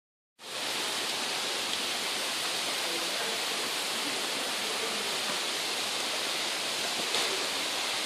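Manoa Falls, a tall waterfall, rushing steadily: an even hiss of falling water that cuts in abruptly a moment in.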